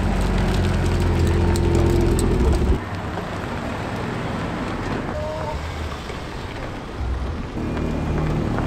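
Car engines running as cars pull away: a loud, steady low engine note for the first few seconds that cuts off suddenly, a quieter stretch of outdoor noise, then near the end a Honda Civic Type R's turbocharged four-cylinder running as it rolls out.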